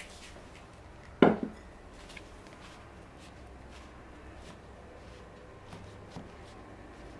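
A single sharp knock about a second in, then a dough scraper cutting through crumbly scone dough of flour, butter and milk in a bowl, with faint soft scrapes and ticks.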